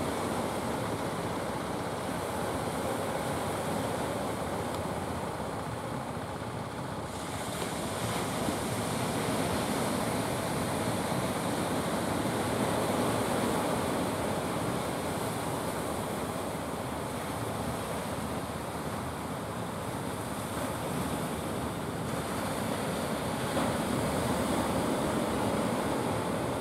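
Sea surf washing on the shore, swelling and easing gently, with some wind on the microphone.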